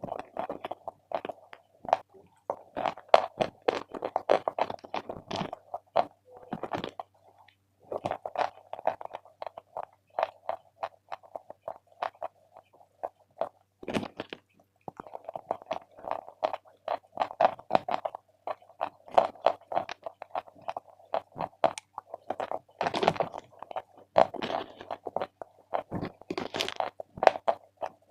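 Chalk being bitten and chewed: dense, crisp crunching that pauses briefly twice, with one sharp snap in the second pause.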